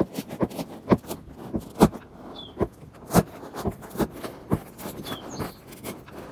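A pocket knife sawing through a foam floor mat in quick, short strokes, about two or three a second, cutting out a hole.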